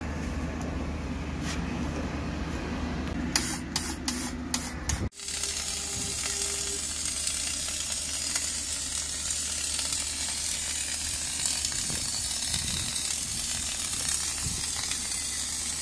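A Retop MIG 500 welder's MIG arc burning steadily, an even frying sizzle from about five seconds in. Before it comes a steady low hum with a quick run of sharp clicks, then a brief cut-out.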